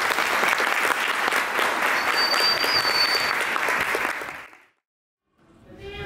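Audience applauding, with a brief high whistle about two seconds in. The applause fades out about four seconds in to a moment of silence.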